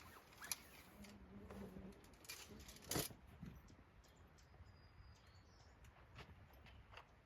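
Near silence with a few faint clicks and taps, one sharper click about three seconds in, and a brief faint high chirp.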